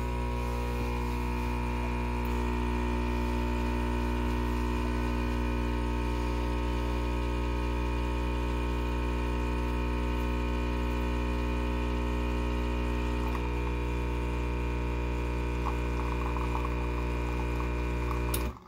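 Rocket Appartamento espresso machine's vibratory pump buzzing steadily while pulling an espresso shot, cutting off suddenly near the end as the brew lever is lifted.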